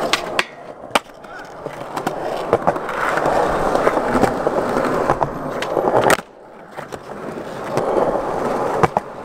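Skateboard wheels rolling on concrete with a steady, building rolling noise, broken by sharp clacks of the board's tail and wheels striking the ground. The loudest clack comes about six seconds in, after which the rolling drops away briefly before building again.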